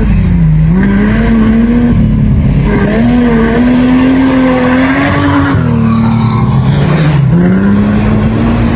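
Engine of a T3-class rally vehicle running hard under load. Its note dips and climbs back about half a second in, and again near the end, as the throttle is lifted and reapplied.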